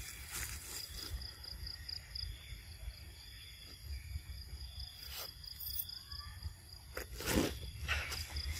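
Insects chirping in a high, pulsing trill, over a steady low rumble. In the second half come a few brief, louder noises, the loudest about seven seconds in.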